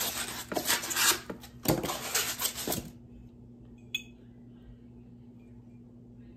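Box items being handled, clattering and clinking like crockery, for about three seconds before it stops; one small click follows about four seconds in.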